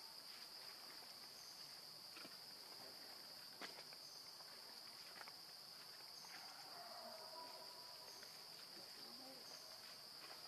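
Faint, steady high-pitched drone of insects, with a few soft clicks, the clearest about three and a half seconds in.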